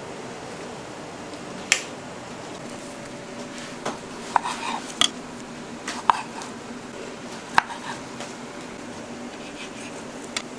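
A chef's knife knocking on a wooden cutting board as cherry tomatoes are halved: sharp, single knocks a second or two apart, a few close together about four to five seconds in, over a steady low room hum.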